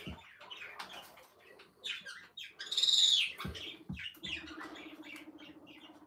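A pet bird gives one loud, high chirp about three seconds in, among short scratching and rustling sounds, with a faint steady hum underneath in the second half.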